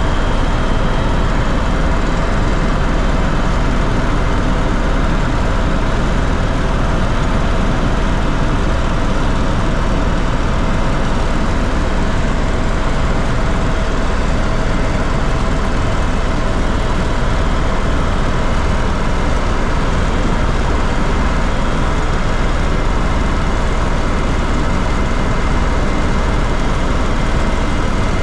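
Steady, loud engine drone of a sightseeing aircraft in flight, heard from inside the cabin. It is a constant rushing roar with a faint steady hum running through it.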